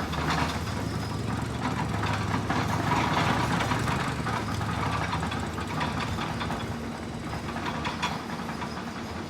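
Motorcycle engine idling steadily with a low, even drone.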